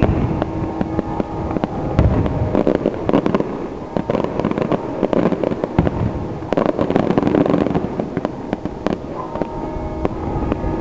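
Aerial fireworks shells bursting, a dense run of rapid crackling pops with a heavier bang about two seconds in. A faint steady hum runs underneath.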